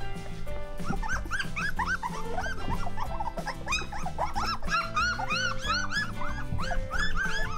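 A litter of two-week-old Weimaraner puppies whimpering and squeaking: many short, high cries that rise and fall, coming thick and overlapping, over background music.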